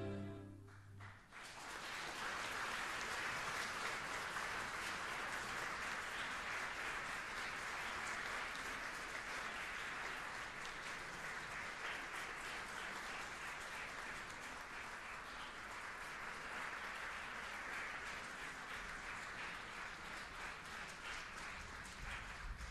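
The last note of the music dies away, then a theatre audience applauds: steady, dense clapping that starts about a second in, eases slightly later on, and stops near the end.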